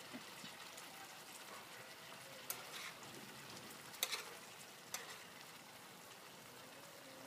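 Beef, onion and egg sizzling quietly in a frying pan on a portable gas burner as they stir-fry, with a few sharp metallic clicks about two and a half, four and five seconds in.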